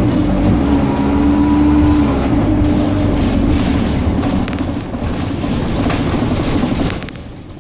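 Dennis Dart SLF single-deck bus heard from inside the saloon while driving: a steady engine and gearbox whine for about two seconds, then running noise with rattling of the interior fittings. The noise drops away near the end.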